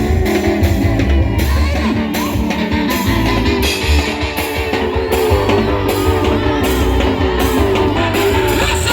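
Loud band music with guitar over a heavy bass line and a steady drum beat.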